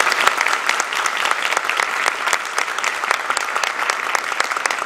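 Audience and panelists applauding: many hands clapping in a dense patter that eases off a little near the end.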